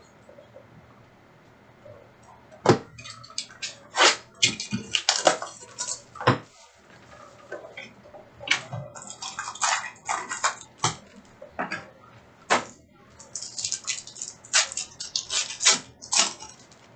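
Trading-card packs being opened and the cards handled: a busy run of sharp crinkles, snaps and rustles that starts a couple of seconds in and continues in clusters almost to the end.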